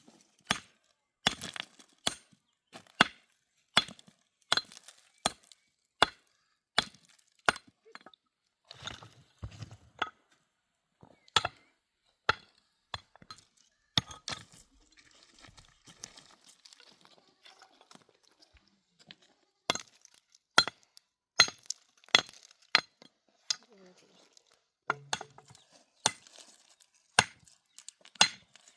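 Repeated sharp chopping strikes on wood, about one every three-quarters of a second, breaking off for a few seconds midway and then going on.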